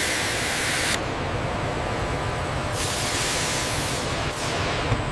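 Pneumatic applicator gun hissing in two bursts, one about a second long at the start and another a little past the middle, over a steady low industrial hum.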